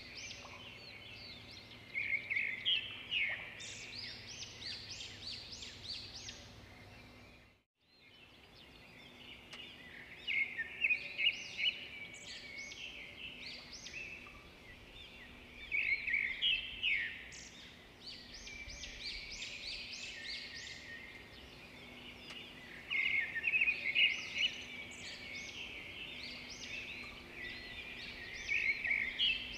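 Birds chirping and chattering in repeated bouts of quick, high calls every few seconds over faint steady background noise. The sound cuts out completely for a moment about eight seconds in.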